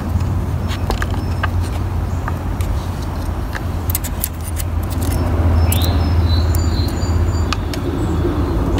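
Scattered small clicks and taps of tools and plastic trimmer parts being handled while new fuel line is fitted to a string trimmer's fuel tank, over a steady low hum. A brief high squeak-like tone rises and holds about six seconds in.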